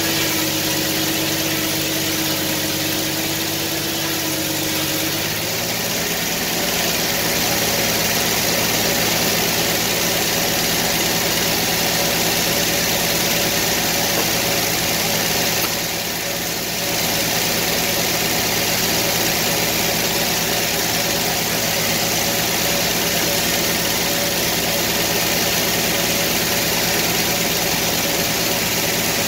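Circular sawmill running: its engine going steadily under the large spinning saw blade. The engine note shifts about five seconds in, then holds steady.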